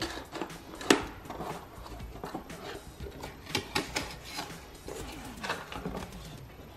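Cardboard shipping box being opened by hand: the taped tab pulled free and the flaps folded back, with rustling, scraping and clicks of the cardboard. A sharp snap about a second in is the loudest sound.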